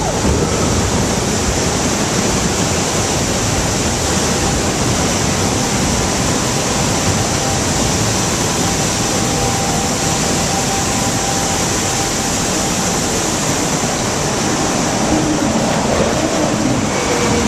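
Steady rush of water flowing along a log flume ride's channel, with a faint high whine in the middle.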